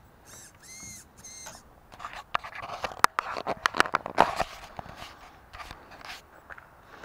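Handling noise: fingers scraping, rubbing and knocking on the camera, in a dense run of sharp clicks in the middle. Near the start come three brief high whirs, each rising and falling in pitch.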